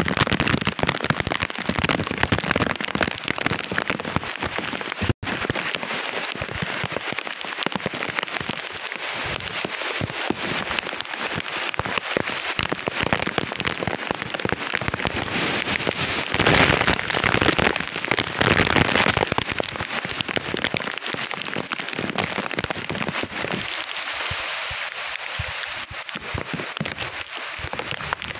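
Typhoon rain pouring heavily with gusting wind, in a dense steady rush that swells louder about two thirds of the way through.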